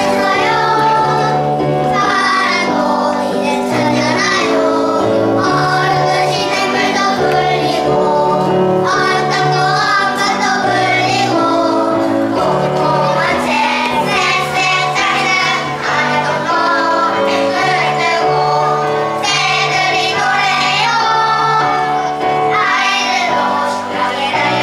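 A group of young children singing a song together over instrumental accompaniment with a steady bass line.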